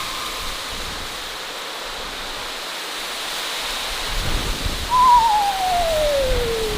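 Halloween sound-effect track: a steady hiss like wind and rain, with a low rumble swelling up about four seconds in. About five seconds in, a long eerie call wavers briefly and then slides steadily down in pitch.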